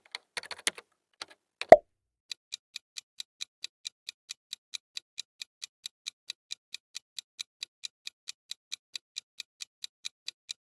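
Clock-ticking countdown sound effect: even, quick ticks, four to five a second, starting about two seconds in. Before the ticking come a few quick clicks and a single louder pop.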